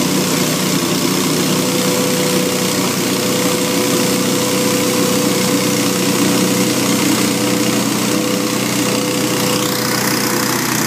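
Hurricane 314 stand-on leaf blower running steadily at working speed, its gasoline engine and fan giving a constant drone with a steady whine, blowing leaves.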